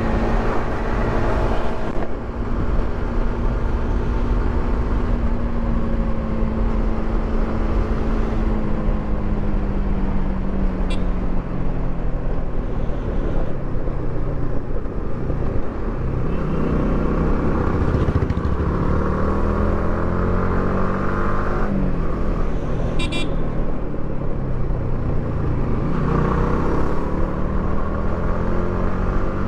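Yamaha R15 V3's 155 cc single-cylinder engine running on its stock exhaust while riding, over a steady low wind rumble. The engine note falls as the bike slows around the middle, rises again as it picks up speed, and steps in pitch a couple of times later on, with two brief sharp high sounds along the way.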